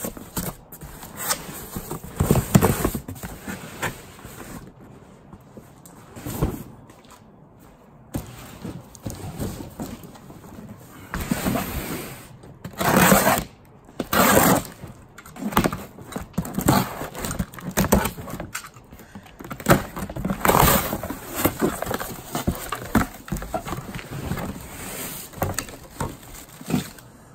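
Cardboard moving box being opened and handled: packing tape slit with a knife, flaps pulled open, and cardboard scraping and rustling as items inside are shifted, with occasional thunks. The loudest scrapes come a little under halfway through.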